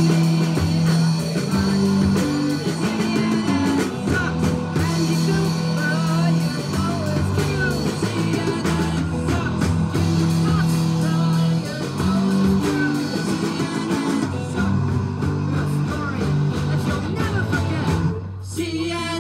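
Live rock band playing a song with guitar and singing voices, the music dipping briefly near the end.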